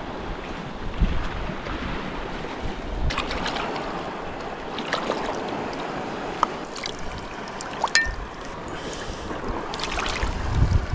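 Wind buffeting the microphone over shallow sea water, with scattered sharp clicks and scrapes through the middle as a serrated diving knife works against a rock while an octopus is cleaned. Gusts rumble again near the end.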